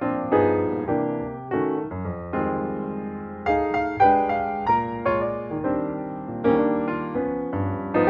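Background piano music: notes and chords struck about twice a second, each fading away.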